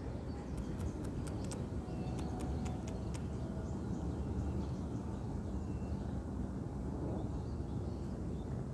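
Outdoor ambience: a steady low rumble, with a run of faint sharp clicks in the first three seconds.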